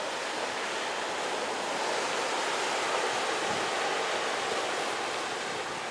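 Ocean surf washing steadily, swelling a little a couple of seconds in.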